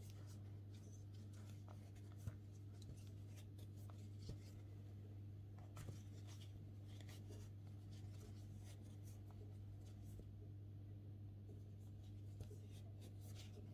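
Faint rustling and scratching of a crochet hook working chunky T-shirt yarn through the stitches, with a few soft clicks, over a steady low hum.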